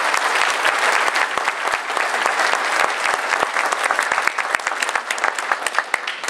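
Audience applauding: many people clapping steadily, dying down near the end.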